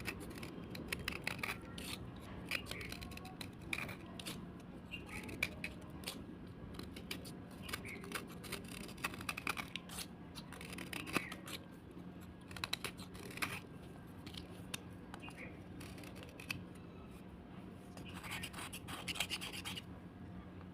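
Slate being scraped: an irregular run of crisp scratches and sharp little clicks, busiest near the end, over a faint steady hum.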